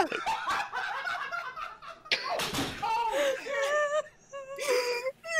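A person weeping and laughing at once: high, wavering, broken laughter.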